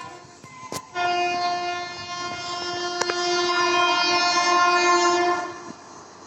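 Air horn of an Indian Railways WAP-7 electric locomotive sounding one long steady blast, starting about a second in and stopping shortly before the end, over the running noise of the train.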